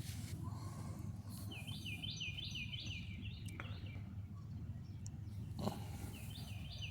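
A small bird singing a quick run of short, downward-slurred chirps about a second and a half in, over a steady low background hum.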